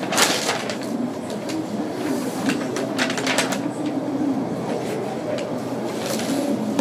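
Room ambience with faint, indistinct voices and scattered short clicks.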